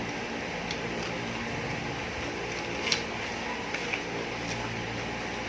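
Steady low room hum with a few faint, short clicks scattered through it.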